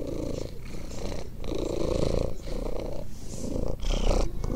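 A tabby kitten purring steadily while being stroked, the purr pausing briefly between breaths about every half second. A low thud near the end.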